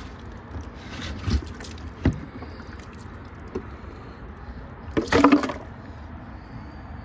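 Black plastic lid of a bucket being twisted and pulled off, plastic scraping and rubbing with rainwater splashing on top of the lid. There are two sharp knocks in the first couple of seconds and a louder bump about five seconds in.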